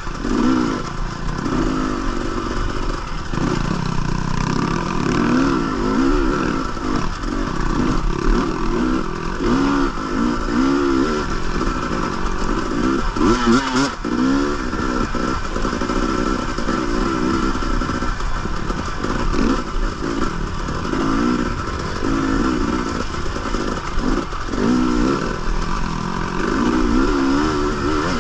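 Dirt bike engine revving up and down over and over, its pitch rising and falling every second or so as the throttle is worked through a race trail, with some clatter from the bike.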